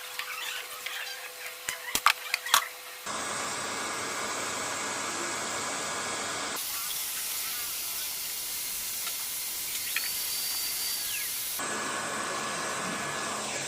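A few sharp clicks, then from about three seconds in a steady hiss that shifts in tone abruptly twice.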